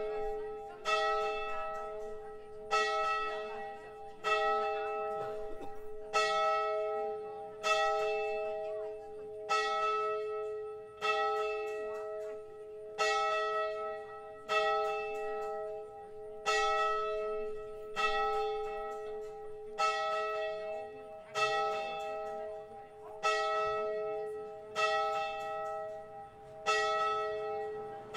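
A single church bell tolling, struck about every two seconds at the same pitch, each stroke ringing on and fading before the next.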